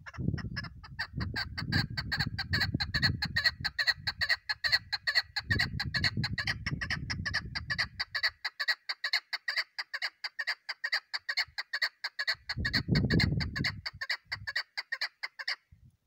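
A caged female chukar partridge calling: a fast, steady string of short chuck notes, about six a second, that stops just before the end. A low rumbling noise comes and goes under it three times.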